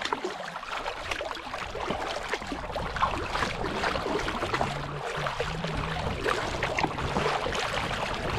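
Water splashing and rushing along the hull of a fishing kayak as it is paddled, the paddle blades dipping on alternate sides; a dense, steady splashing with many small splashes. A faint low hum comes and goes in the middle.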